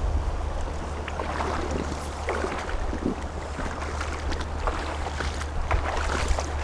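River water lapping and splashing against a small drifting boat, in short irregular splashes, over a steady low wind rumble on the microphone.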